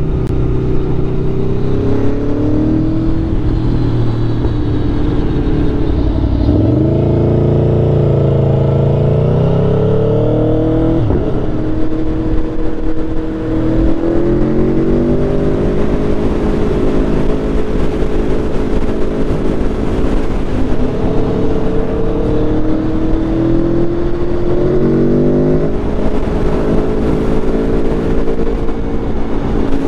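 2021 Aprilia Tuono V4's V4 engine through an SC Project SC1-R carbon slip-on exhaust, heard from on the bike at freeway speed. The pitch climbs hard a few seconds in, drops sharply at a gear change, then rises again and holds mostly steady while cruising.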